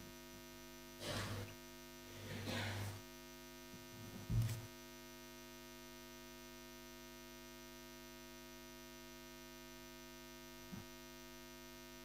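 Steady electrical mains hum from the sound system. Over it, a few soft handling rustles and a low knock come in the first few seconds, and a faint click comes near the end.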